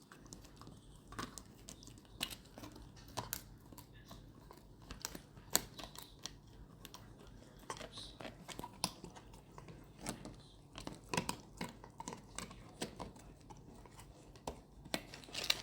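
Labrador puppy gnawing on a large chew: irregular crunching and clicking bites.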